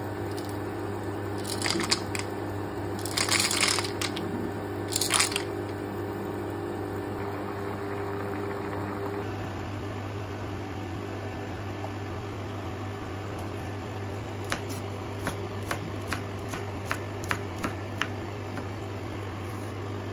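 Water at a rolling boil in a pot, with a few louder bursts of bubbling in the first seconds. Then, over a steady low hum, a chef's knife chops baby corn on a wooden board: about nine short, sharp strikes.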